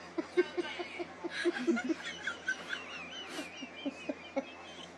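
A puppy whining in a thin, high, wavering tone, while a person laughs in quick short bursts.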